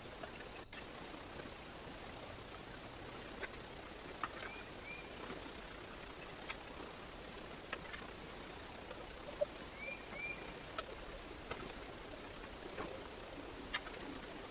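Small birds at a feeder: scattered light ticks and two short paired chirps, about four seconds in and again near ten seconds, over the steady hiss of a trail camera's microphone.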